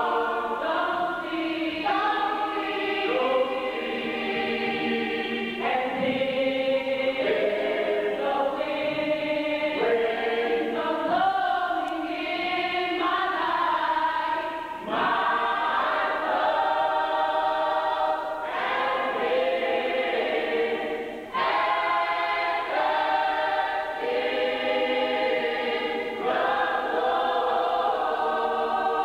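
Church choir singing together in long held chords, with two short breaks, one about halfway through and another some seconds later.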